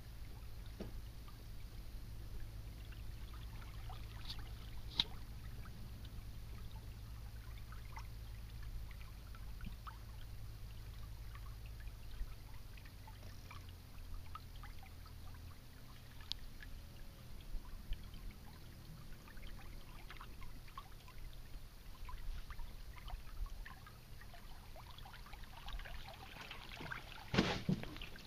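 Water trickling and dripping with small splashes around a canoe being paddled on calm water, over a low steady rumble; one louder splash about a second before the end.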